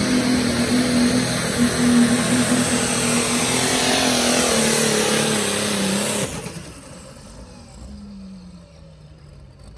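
Superstock pulling tractor's diesel engine running flat out under load as it drags the weight sled. About six seconds in the sound drops sharply, and a quieter engine note falls in pitch as the engine winds down at the end of the pull.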